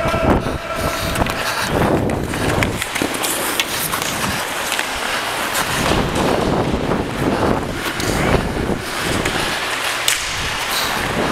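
Ice hockey play: skate blades scraping and cutting on the ice, with scattered clacks of sticks and puck.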